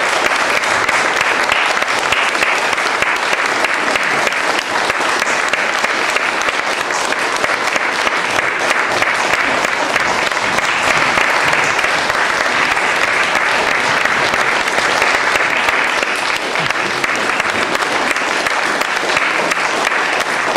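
Concert audience applauding: dense, steady clapping that holds at the same level throughout.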